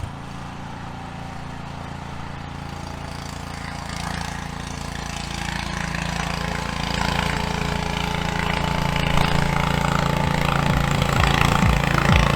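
An engine running with a steady low hum, growing gradually louder.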